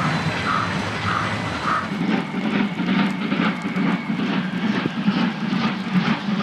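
Steam locomotive 50 3648, a two-cylinder 2-10-0, working in the distance over a steady low rumble. From about two seconds in its exhaust beats come in a regular run of about three a second. The uploader calls its exhaust beat 'limping' and puts that down to a damaged slide valve.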